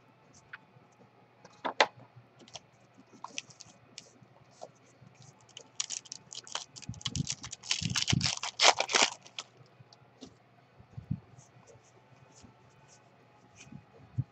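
A baseball card pack's wrapper torn open and crinkled by hand: a dense crackling for about three seconds in the middle, with light clicks and taps of cards being handled before and after.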